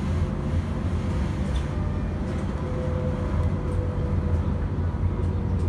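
Tram running along the line, heard from inside the passenger car: a steady low rumble with a faint steady whine over it.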